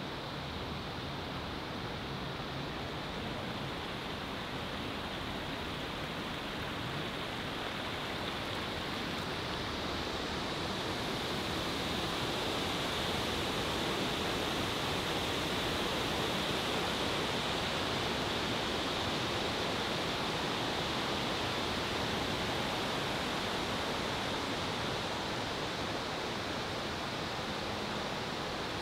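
Steady rush of flowing water, growing a little louder about ten seconds in.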